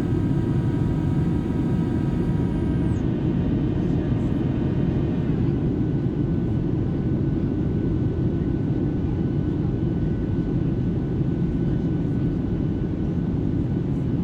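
Boeing 737-700 cabin noise heard from a window seat over the wing: a steady, deep roar of the jet engines and airflow in flight. Faint whining tones fade out in the first few seconds.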